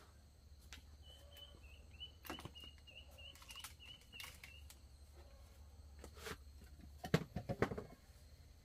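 A bird chirping in a quick run of short, even high notes, about four a second, for a few seconds. Scattered light clicks and taps of small objects being handled, with a cluster of taps near the end.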